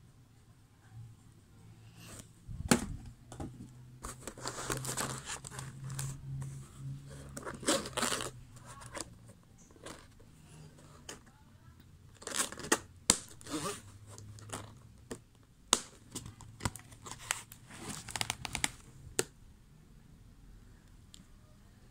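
Cardboard sleeve and clear plastic case of a colored pencil set being handled: irregular bursts of rustling and scraping with several sharp plastic clicks.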